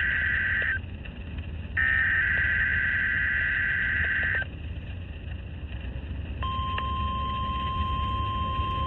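NOAA Weather Radio test signal heard through a weather radio receiver: two bursts of warbling SAME digital header tones, the second ending about four and a half seconds in, then about six seconds in the steady 1050 Hz warning alarm tone begins, over a constant radio hiss and hum.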